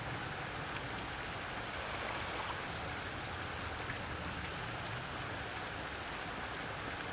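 A steady, even rush of flowing stream water.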